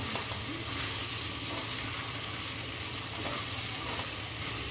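Rice, dal, vegetables and spices frying in a wide metal kadhai, with a steady sizzle as they are stirred with a wooden spatula.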